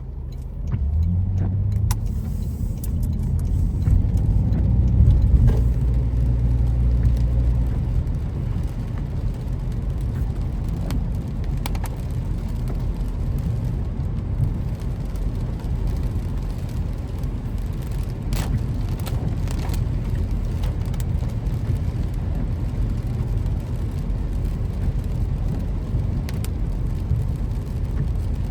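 Car driving: a steady low engine and road rumble that grows louder from about one second in, is strongest around four to seven seconds, then settles. A few sharp clicks are scattered through it.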